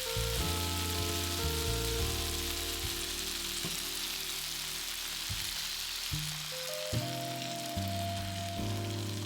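Food frying in a hot pan of olive oil, a steady sizzle, with soft background music playing.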